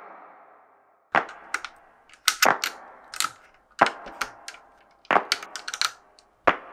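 LEGO bricks clicking as they are pressed and snapped together and set down on a hard plastic base: a dozen or so sharp plastic clicks and taps at an irregular pace, some in quick pairs, each with a short ring.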